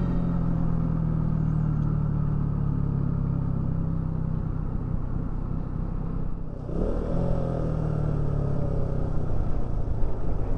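KTM Duke 200's single-cylinder engine running steadily while the motorcycle is ridden along, dropping away briefly about six seconds in and then picking up again.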